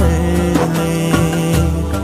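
Background music from an Urdu devotional naat: sustained held notes over a steady low drone.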